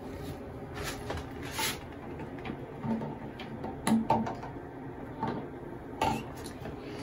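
A child washing her hands at a bathroom sink: a scatter of short clicks and knocks from the soap dispenser, the taps and her hands, loudest about four seconds in, over a faint steady hiss.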